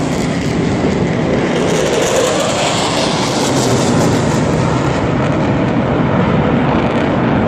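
Aircraft flying over during an air show: a loud, steady rushing rumble.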